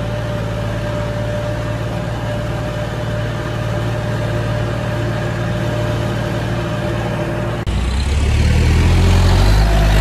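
Diesel tractor engine running steadily, heard from the driver's seat while driving down a dirt forest track. About three-quarters of the way in, a cut switches to a louder, deeper tractor engine close by, working to drag a log.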